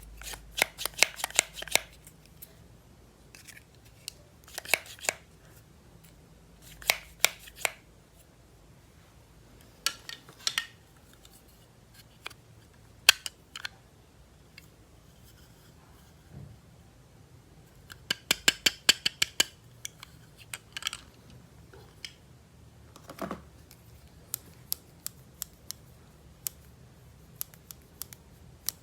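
Clusters of quick, small clicks and snips from handling and unboxing toys and their packaging, each cluster a second or so long, with quiet gaps between.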